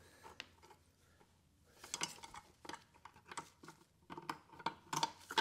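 Irregular light metallic clinking and rattling as parts are worked loose inside an opened CVT transmission case, near the chain and pump drive. The clinks are sparse at first and come thick and fast from about two seconds in.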